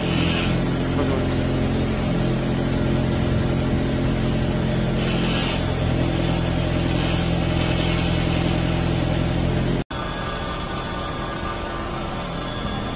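Engine of a drill-rod carrier running steadily, powering the hydraulics of its magnetic rod-handling arms. About ten seconds in it cuts to a quieter engine sound with a faint high whine.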